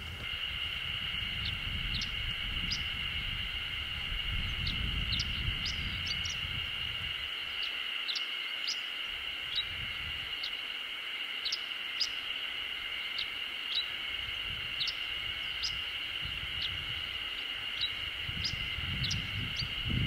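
Chestnut-eared bunting singing: short, sharp high chirps scattered through, some in quick little clusters. They sit over a steady high-pitched drone.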